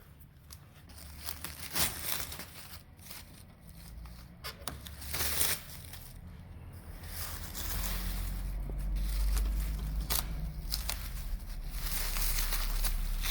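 Rustling and crinkling with irregular clicks, as of material being handled; a low rumble comes in about eight seconds in.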